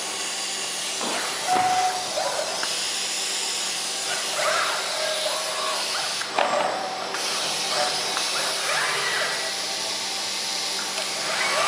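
Steady air hiss from an ABB IRB4600 robot cell handling cardboard cartons, with a few short whines and clicks from the moving arm and its gripper.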